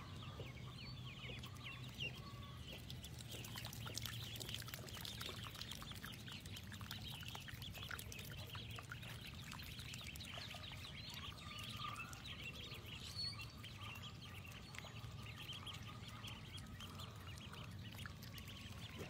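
A flock of ducklings peeping, many faint, short, high chirps overlapping without a break.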